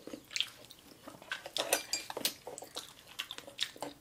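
Chopsticks clicking and scraping against a baked mussel shell, a string of small, irregular clicks, with some chewing.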